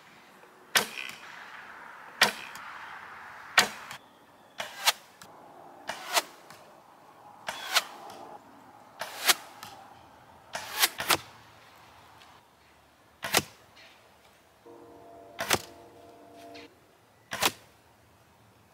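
A black walnut self bow shooting arrows: about a dozen sharp snaps of the string on release, several followed a fraction of a second later by the arrow striking a straw bale target.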